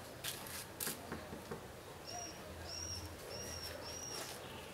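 A small bird chirping four times, evenly spaced short high calls in the second half. Two brief hissing noises come about half a second in.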